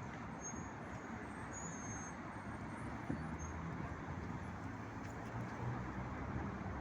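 MAZ-206 city bus riding along, heard from inside the passenger cabin: a steady engine hum under road and cabin noise, with a single sharp click about three seconds in.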